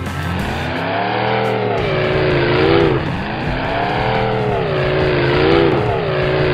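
Race car engine sound effect, revving up and falling back in several repeated swells.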